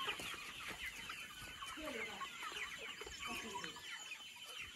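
A large flock of local free-range chickens clucking and chirping, many short calls overlapping.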